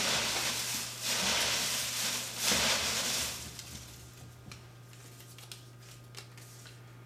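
Shredded paper strips and folded slips rustling in waves as a hand stirs through them in a raffle box, stopping about three seconds in. After that come a few faint crinkles as a single paper slip is unfolded.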